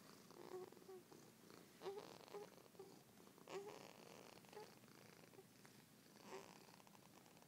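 Faint, short squeaky whimpers and grunts from a sleeping baby, a string of them coming a second or so apart.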